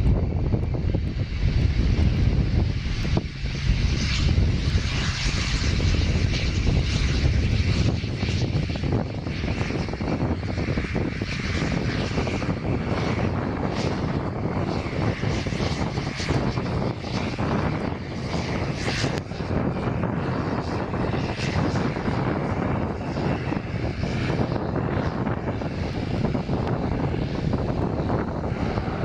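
Propeller aircraft's engines running steadily, with a heavy low rumble for the first several seconds that eases a little after that.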